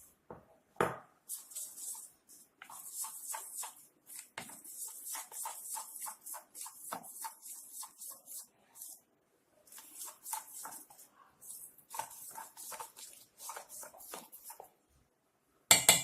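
Gram flour being stirred into an oil, water and spice mixture in a bowl: runs of quick scraping strokes, several a second, with short pauses between runs. There is a sharp knock about a second in and a louder one at the very end.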